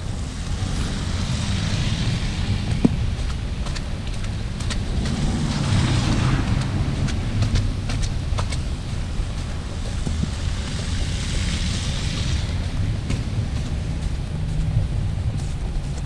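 Wind rumbling on the microphone, with three slow swells of wet-tyre hiss from cars passing on a slushy street, about two, six and eleven seconds in. Scattered light taps of footsteps in snow.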